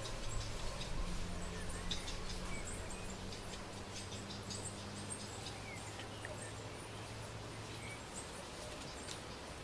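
A band of coatis moving and foraging close around: scattered faint high chirps and squeaks with small clicks and rustling in the leaf litter. A low steady hum runs under it and fades out about eight seconds in.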